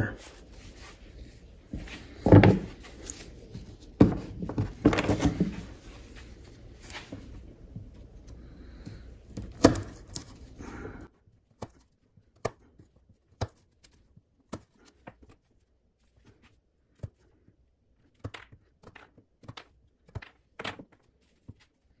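Folding knife cutting test materials on a wooden board. First come several thunks and scraping cuts through saddle leather. About halfway through the background hum stops, and short sharp clicks follow as the blade chops through bungee cord against the wood.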